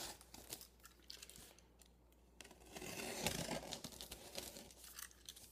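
Faint scratching and tearing of a blade slitting the packing tape on a large cardboard shipping box, starting about two and a half seconds in.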